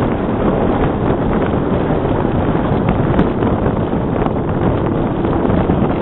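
Steady rush of wind on the microphone of a camera riding aboard a Bixler RC plane in flight, loud and even throughout.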